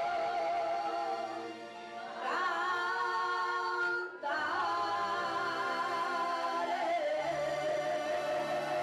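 Slow worship song sung with long, held, wavering notes. It dips briefly about two seconds in and breaks off for a moment about four seconds in.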